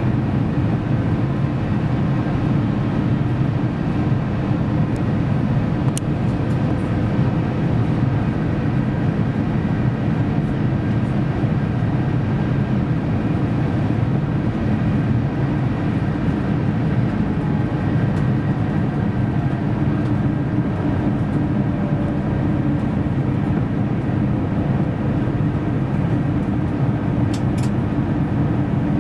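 Cabin noise inside an Airbus A350 in flight on approach: a steady low rumble of its Rolls-Royce Trent XWB engines and airflow past the fuselage, with a couple of faint clicks.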